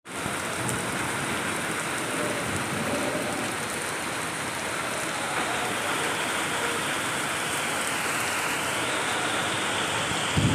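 Heavy rain falling steadily on trees and paving, a dense even hiss.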